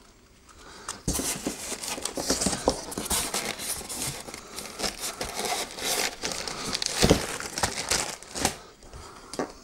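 Plastic bags and packaging crinkling and rustling as accessories are pulled out of a cardboard box, starting about a second in, with a few knocks against the box.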